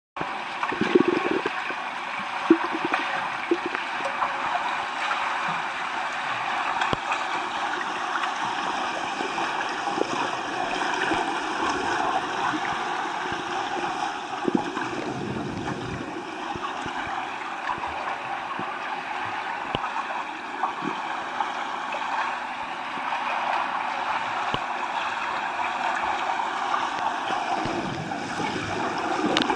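Pool water heard from underwater: a steady gurgling rush of water and air bubbles churned by front-crawl swimmers' arm strokes and kicks. There are a few sharp clicks in the first few seconds.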